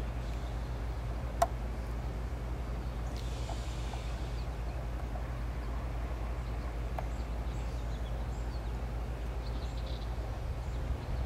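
Diesel freight locomotive rumbling low and steady as it approaches. Faint bird chirps and one sharp click about a second and a half in.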